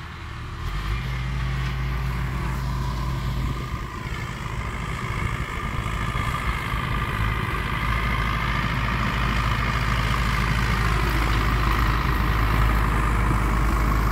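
MTZ tractor's diesel engine running steadily under load as it pulls a working round baler, growing louder as it comes closer.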